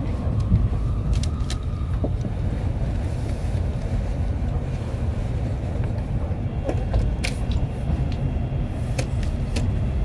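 Tokaido Shinkansen Nozomi running, heard inside the passenger cabin: a steady low rumble with a few short, sharp ticks.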